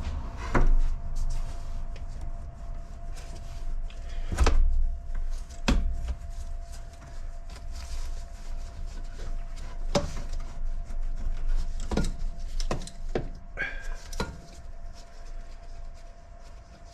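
Irregular knocks and clicks of hand tools and loose engine parts being handled during intake manifold removal, about eight in all, the loudest near the start. A faint steady hum lies underneath.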